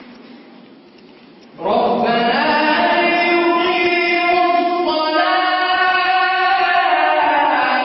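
A man's solo voice chanting a Quranic recitation. The last phrase dies away in the stone hall's echo, then about two seconds in he starts a new phrase on one long, drawn-out note with slight melodic turns.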